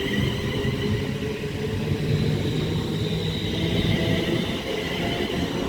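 London Northwestern Railway Class 350 electric multiple unit running past the platform: a steady rumble of wheels and running gear with faint steady high-pitched tones above it.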